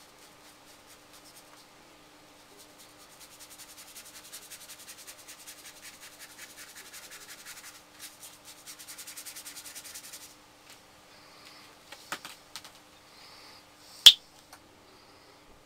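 Paintbrush scrubbing acrylic paint onto paper in quick, rhythmic back-and-forth strokes for several seconds. A few light knocks follow, then one loud, sharp click near the end.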